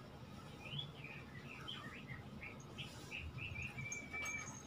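Faint, high chirping calls: a quick string of short chirps rising and falling in pitch, then one held whistle-like note near the end.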